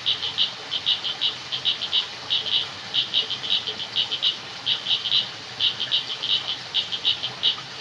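Frogs calling at night: short, high-pitched clicking notes in quick clusters of two to four, repeating over and over without a break, over a faint steady hiss.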